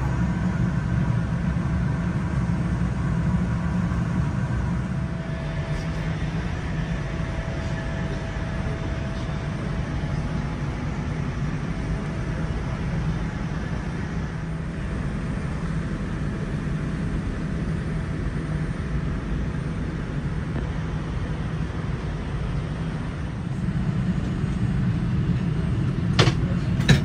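Steady low rumble and hum of a Boeing 787-9's cabin air conditioning, with a few faint steady tones above it. There is a sharp click near the end.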